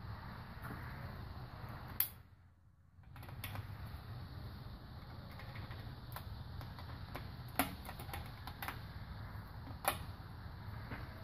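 Breaker bar and socket clicking and knocking on the cylinder head bolts of a Toyota 1ZZ-FE engine as they are turned the extra 90 degrees in angle tightening: three sharp metallic clicks, with a few lighter ticks around the second, over a steady low background noise.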